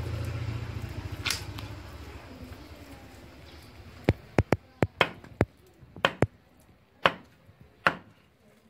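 Cleaver chopping raw chicken on a wooden log chopping block: one chop early on, then about ten sharp, irregularly spaced chops in the second half. A low hum fades away over the first two seconds.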